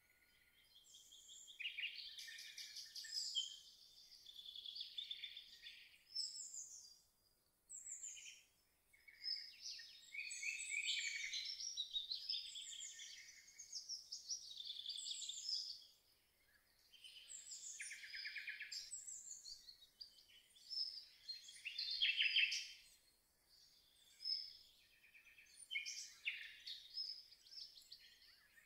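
Songbirds singing: one short high phrase after another, with rapid trills and chirps that overlap at times.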